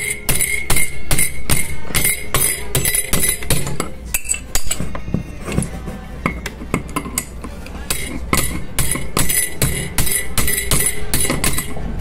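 Light metal-on-metal taps, about three a second with a short pause midway, as a new ball bearing is driven down onto a water-pump motor's rotor shaft. The taps fall on a makeshift driver fitted over the shaft, struck with an adjustable wrench.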